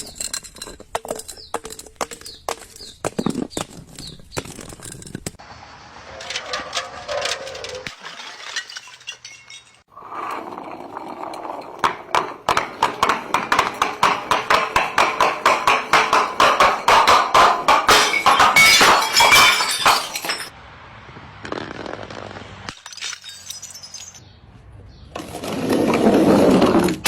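A string of short sound effects built mostly of sharp knocks, clatters and breaking, crashing noises, with a long run of rapid, evenly repeated strokes in the middle and a loud noisy burst near the end.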